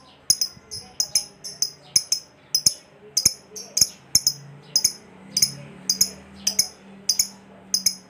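Fischer's lovebird calling in a rapid series of sharp, high-pitched chirps, about three a second: the shrill 'ngekek' chatter.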